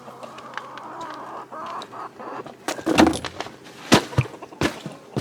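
Chickens clucking, with a rustling in the first half and several sharp knocks in the second half, the loudest about three and four seconds in.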